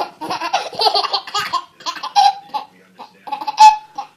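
A baby laughing in a run of short, choppy bursts, ending in a loud high squeal about three and a half seconds in.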